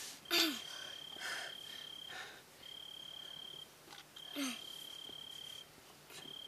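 A cricket trilling at night: a high, even trill that runs for a second or two at a time, stops briefly and starts again, four times. Short breathy sounds, the loudest of them about half a second in and again about four and a half seconds in, fall over the trill.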